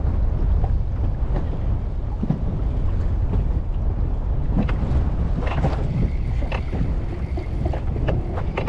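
Strong wind buffeting the microphone, a steady low rumble throughout, with a few small clicks and knocks around the middle.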